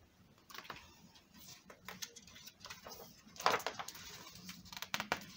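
Pages of a hardcover picture book being turned by hand: paper rustling with irregular crackly clicks, loudest about three and a half seconds in.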